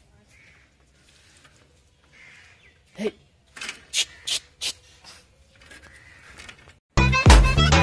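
A cat mews once, briefly, about three seconds in, followed by a few footsteps. Loud music with a beat starts near the end.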